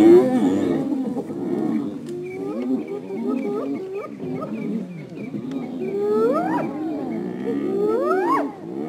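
A pack of African wild dogs and spotted hyenas calling over one another in a confrontation: a dense chorus of overlapping yelps and rapid high chirps. From about six seconds in, several calls rise steeply in pitch.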